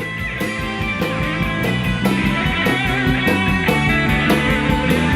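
Rock band playing: drum kit keeping a steady beat with a ticking cymbal pattern on top, over bass and electric guitar.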